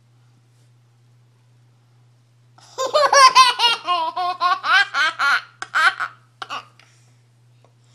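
A toddler laughing hard: a run of high-pitched, gleeful laughs that starts nearly three seconds in and lasts about four seconds.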